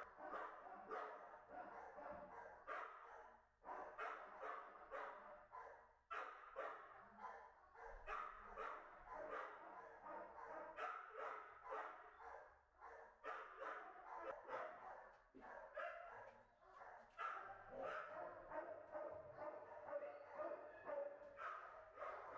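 Many kennel dogs barking at once, their barks overlapping into a continuous din with no pauses.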